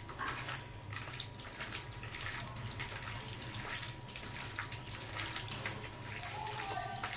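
Hands squishing and turning raw chicken pieces in an oily spice marinade in a steel bowl: faint, irregular wet squelching, over a steady low hum.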